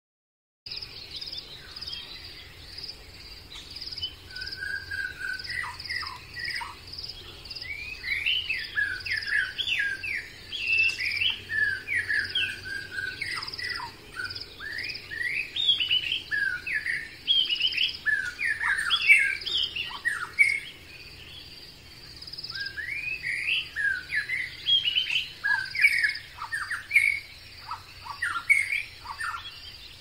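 Woodland birds singing, many quick chirping and whistled phrases overlapping, over a steady high insect buzz.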